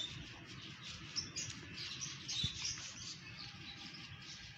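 Faint chirping of small birds, many short high calls, over a low steady background hum.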